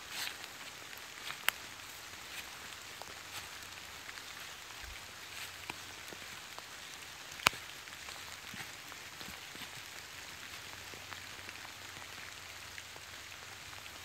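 Light rain falling on a shallow stream and wet leaf litter: a steady soft patter with many scattered drop ticks. A couple of sharper clicks stand out, the loudest about halfway through.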